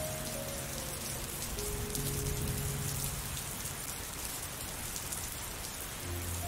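Steady rain falling, with soft background music of a few long held notes in the first half.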